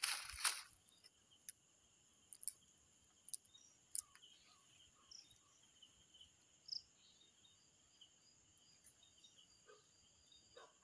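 Night-time crickets chirring steadily at two high pitches. A short burst of rustling noise comes right at the start, and a few faint clicks follow.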